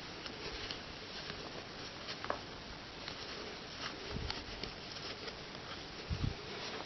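Faint handling of a small plastic doll as net tights are worked onto its legs: scattered light rustles and ticks, with a soft low thump about four seconds in and another near the end.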